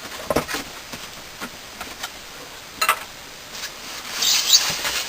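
A cardboard box being cut open with a knife: a few sharp taps and knocks, then a scratchy rasp of the blade through the cardboard about four seconds in.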